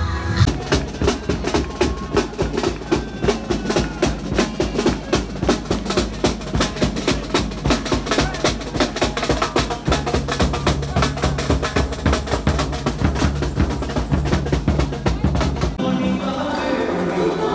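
Carnival drum troupe playing a fast, steady rhythm on drums and hand percussion. Near the end it gives way to a stage band with singing.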